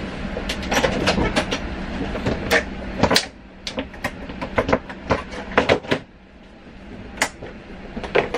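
Clicks and clatter of aircraft galley units being handled: latches snapping and metal cart and compartment doors opening and shutting. Under it runs a steady low hum that drops away about three seconds in.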